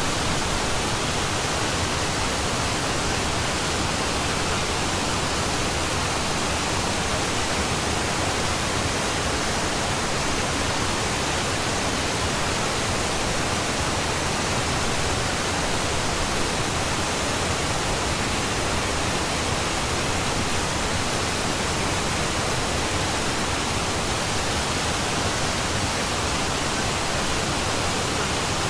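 Steady, even noise that spreads from deep to very high pitch without any change: the masking bed of a subliminal audio track.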